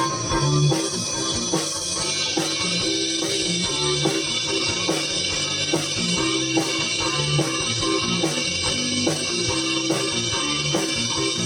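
Live rock band playing an instrumental stretch with guitar, bass and drum kit keeping a steady beat, without vocals.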